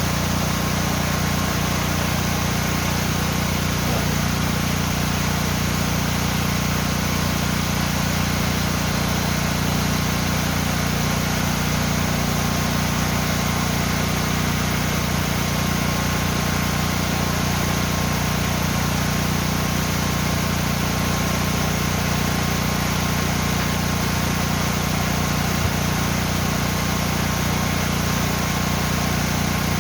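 Yongso Falls, a mountain-valley waterfall, pouring into its pool: a steady, unbroken rush of falling water, heaviest in the low range.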